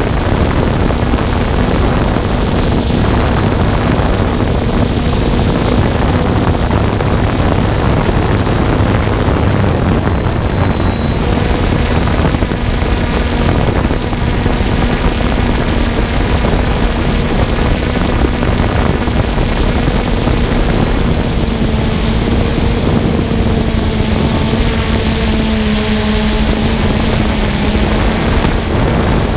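Multirotor drone's motors and propellers running with a steady hum in flight, recorded by the drone's own camera microphone, with wind rushing over the microphone.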